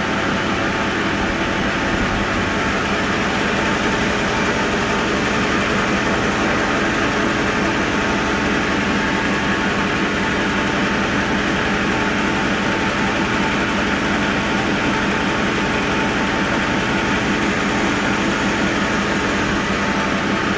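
Automatic rice vermicelli (bihun) making machine running with a steady, unchanging mechanical hum.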